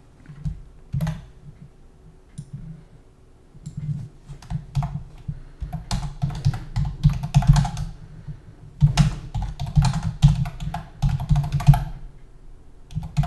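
Typing on a computer keyboard: a few scattered keystrokes at first, then quick runs of key clicks with short pauses between them.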